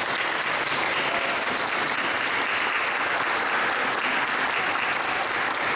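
Audience applauding, a steady run of clapping with no let-up.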